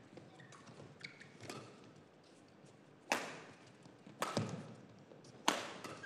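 Badminton rackets striking a shuttlecock during a rally: sharp hits about three seconds in, twice in quick succession just after four seconds, and again about five and a half seconds in, each trailing off in a short echo. A few fainter taps come in the first two seconds.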